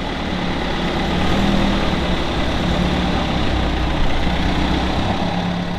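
Supercharged MG inline four-cylinder engine running steadily at a low, even speed.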